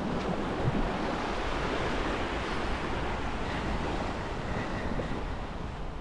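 Black Sea surf washing steadily onto the beach, with wind rumbling on the microphone.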